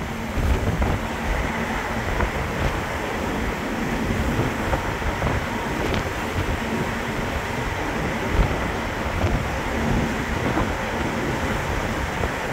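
Steady drone of a car ferry's machinery as it manoeuvres to dock, with wind gusting against the microphone.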